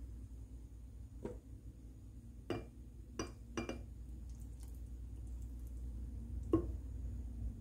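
A thick green smoothie being poured from a glass blender jar into a drinking glass, with about five light glass clinks and knocks, the loudest near the end, over a low steady hum.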